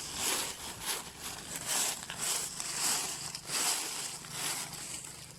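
Dry leaf litter rustling and crunching in short, irregular bursts, about two a second.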